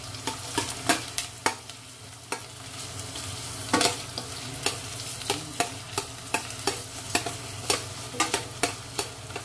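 Onion, garlic and ginger frying in oil in a stainless steel pot, with a steady sizzle. Metal utensils clink and scrape against the pot at irregular intervals as the pieces are stirred, with one louder knock about four seconds in.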